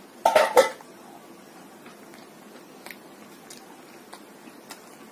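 A person eating a mouthful of cooked mushroom curry. A short loud mouth sound comes just after the start, then faint chewing with occasional small mouth clicks.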